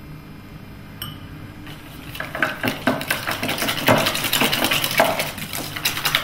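Wire balloon whisk beating a thick cream-cheese mixture in a metal mixing bowl: fast rattling and scraping of the wires against the bowl, starting about two seconds in after a single click.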